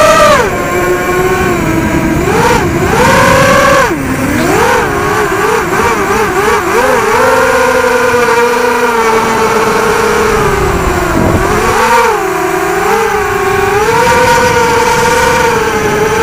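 Brushless motors and propellers of a 250-size FPV quadcopter on a 4S battery whining in flight, heard close from its onboard camera. The pitch rises and falls with the throttle, with a run of quick throttle blips about four seconds in.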